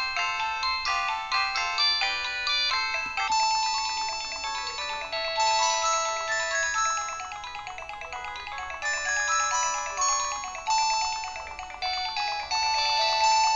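Modottel WTE-300 mobile phone playing a 16-voice polyphonic MIDI ringtone through its small speaker: a chiming multi-note melody with a thin sound and no bass. About three seconds in, the quick short notes give way to longer held notes.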